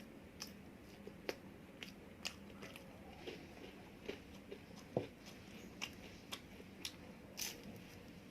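A person chewing and biting food, with irregular sharp crunches and mouth clicks; the loudest comes about five seconds in.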